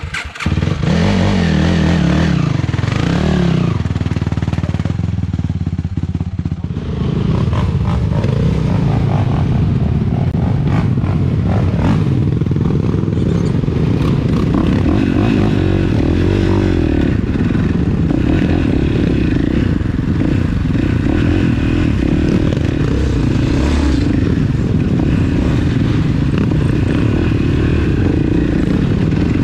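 ATV engine running under way on a trail, its pitch rising and falling over the first few seconds, easing off briefly about six seconds in, then holding steady.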